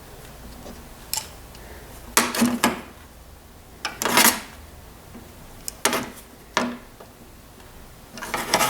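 Irregular sharp metal clicks and short clinking clusters from parts of an old Delta wood lathe being worked apart by hand.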